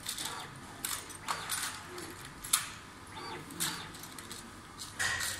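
Automatic soldering robot running a test cycle: a series of short hissing puffs and clicks at irregular intervals, with a sharp click about two and a half seconds in and a brief steady tone near the end.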